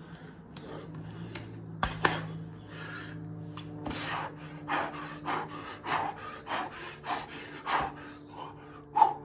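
A man panting hard during burpees, fast heavy breaths about two a second. A slap or thud about two seconds in as he drops his hands to the wet concrete. A steady low hum runs underneath.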